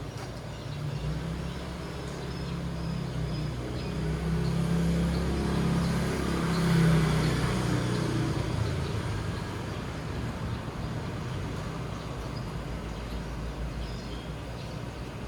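A motor vehicle passing on the road, its engine hum growing louder to a peak about seven seconds in and then fading away.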